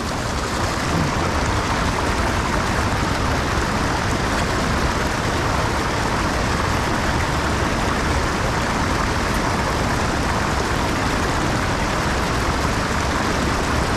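Small waterfall rushing and splashing steadily into a pool.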